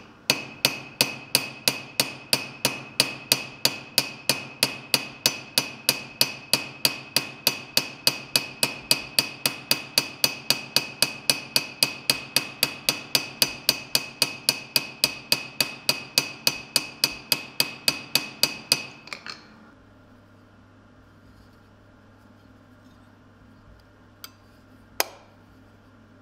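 Small hammer tapping steadily on a copper hinge of a steel plate lid held on a blacksmith's stake, quick even strikes about three a second, each with a bright metallic ring; the tapping stops about 19 seconds in. Two sharp clicks follow near the end.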